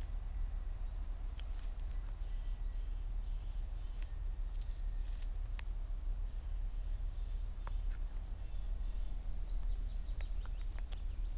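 Steady low wind rumble on the microphone, with scattered sharp clicks and taps as a gull pecks and tugs at chicken scraps on a rock right beside it.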